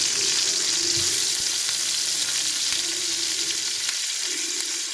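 Seer fish steaks sizzling steadily as they shallow-fry in hot coconut oil, with a few light clicks of a wooden spoon turning the pieces in the pan.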